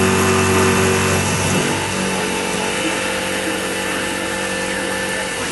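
X2 mini milling machine running, its spindle turning an end mill through the part, with a steady motor hum over a cutting hiss. The hum changes pitch about a second and a half in.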